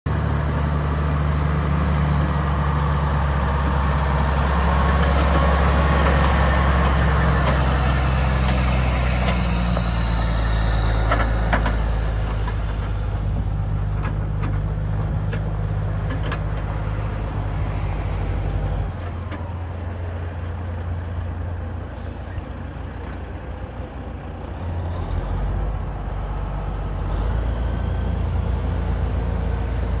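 1999 Kenworth T800 flatbed truck's diesel engine running as the truck drives across gravel, loudest in the first several seconds. A few light clicks come through in the middle. The engine drops to a lower note about two-thirds of the way in, then rises again near the end.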